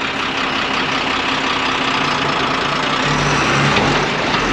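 Heavy vehicle's engine running steadily during a slow parking manoeuvre, with a deeper low hum setting in about three seconds in.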